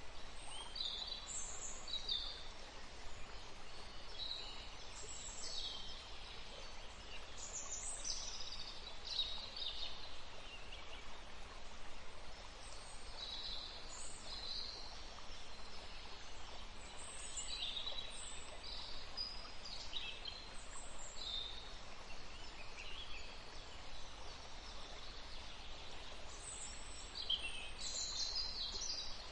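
Forest songbirds chirping and calling in many short, quick phrases, one after another, over a steady faint hiss of background noise.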